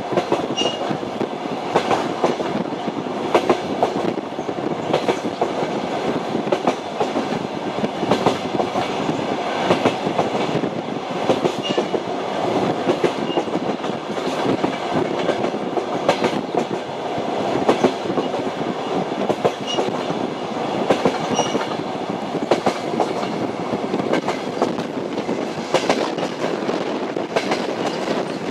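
Train running along the line, its wheels clicking over the rail joints every second or so above a steady rumble. A few faint, brief squeaks are mixed in.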